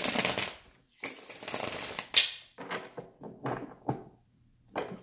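A deck of tarot cards being riffle-shuffled on a wooden table: two bursts of fast card flutter in the first two seconds, then a run of lighter clicks and taps as the deck is handled and squared, with one sharp tap near the end.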